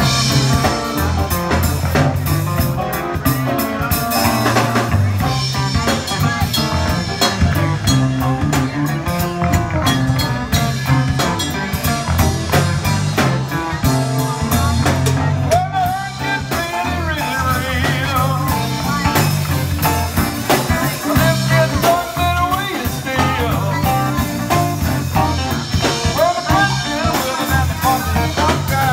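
Live soul band playing a song: electric guitar, electric bass, drum kit and keyboards over a steady beat.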